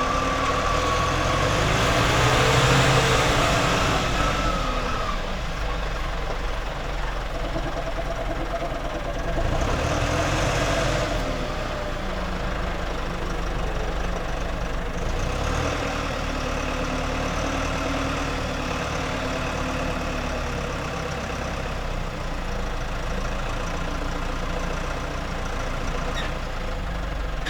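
Tractor engine running as the tractor drives slowly: a steady low rumble, swelling louder about two to four seconds in and again around ten seconds, with the engine note drifting slowly up and down.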